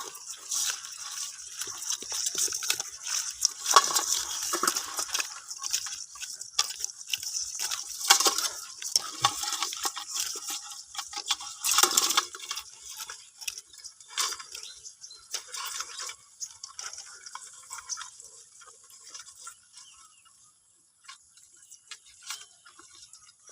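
Water splashing and dripping, mixed with irregular scraping and clicking from handling. It is loudest around 4, 8 and 12 seconds in and thins out near the end.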